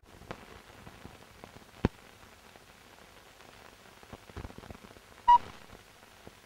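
Faint hiss and crackle of an old film soundtrack with scattered clicks, one sharper click about two seconds in. A short, loud beep about five seconds in is the sync beep of the film's countdown leader.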